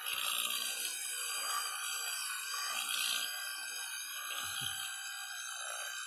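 Electric toothbrush buzzing with a steady high whine as it brushes a cat's teeth.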